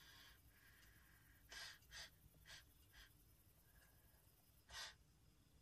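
Near silence broken by a man's short, soft breaths: four quick ones in a row, then a slightly longer one about a second before the end.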